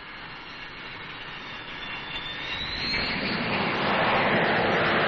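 Jet aircraft engines running at high power on a carrier deck. The noise grows steadily louder, and a high whine rises about two and a half seconds in.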